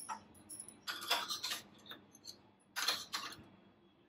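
Light clicks and short scratchy ticks in two clusters, about a second in and about three seconds in.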